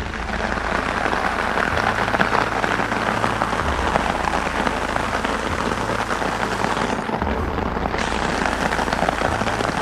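Rain falling steadily on a tarp stretched over a hammock, heard from underneath it: a dense, even hiss of drops from a sudden shower.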